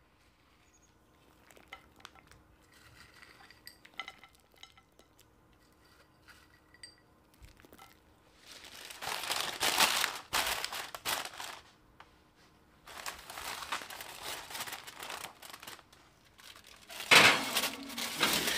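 Aluminium foil crinkling as it is pressed and crimped around a glass baking dish, in three spells, the loudest near the end. Faint clicks and clinks in the first few seconds before it.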